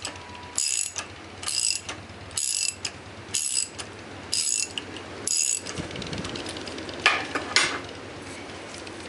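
Socket ratchet wrench clicking in six short bursts about a second apart, its pawl ratcheting on each return stroke while a bolt holding the vise to the stand is worked loose. The ratcheting stops about two-thirds of the way in, followed by two sharp metallic clinks.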